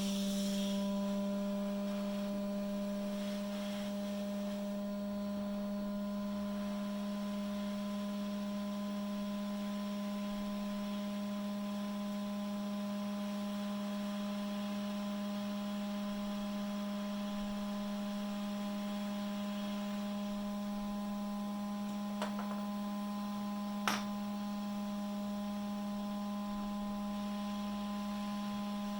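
Steady electrical hum with several overtones, holding one pitch throughout, with two faint clicks a second and a half apart near the end.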